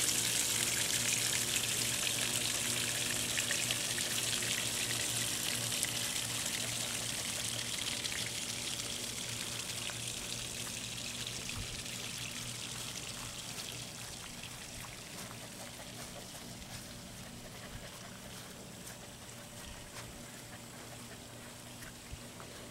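Steady water-like hiss that fades gradually and evenly, with a faint steady low hum underneath.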